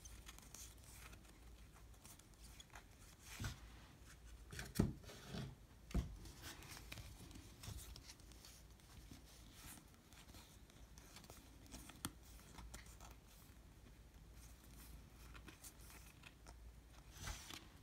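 Topps baseball cards being flipped through by hand: faint sliding and rustling of card stock, with a few sharper flicks between about three and six seconds in and another about twelve seconds in.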